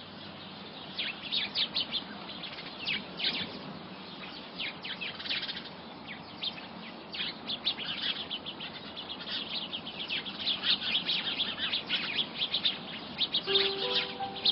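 Small birds chirping in quick, short, high calls, many overlapping, over a steady background hiss. A few music notes come in near the end.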